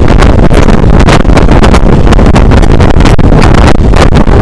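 Loud wind noise on a microphone held out of a moving passenger train's window, over the steady rumble of the train running along the track.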